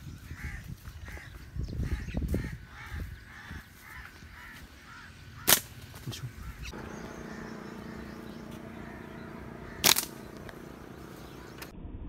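A crow cawing repeatedly over footsteps on a dirt path. About five seconds in, and again about four seconds later, comes a sharp snap, the loudest sound. A steady low hum sets in near the middle.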